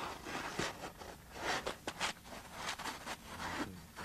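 Cellular glass (Foamglas) pipe insulation section scraping and rubbing against the pipe as it is wrapped into place by hand, in a string of irregular short scrapes with a few light knocks.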